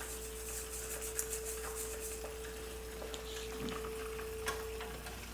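Quiet kitchen with a steady electrical hum and a few soft taps and clinks as a metal flour sieve is handled over a glass bowl.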